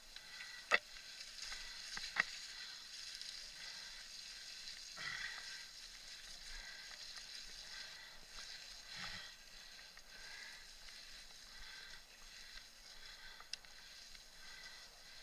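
Mountain bike riding over a muddy dirt trail, heard from a camera on the bike: a steady hiss of tyres and motion, with a few sharp clicks and knocks from bumps, the loudest two within the first few seconds.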